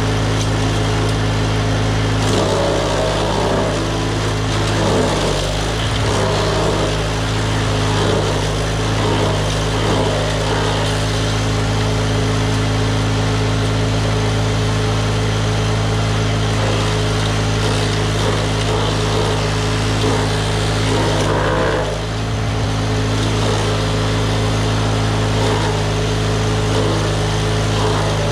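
DR wood chipper's small gas engine running loud and steady at high speed. Its pitch sags and wavers briefly twice, a few seconds in and again near three-quarters through, as it takes load.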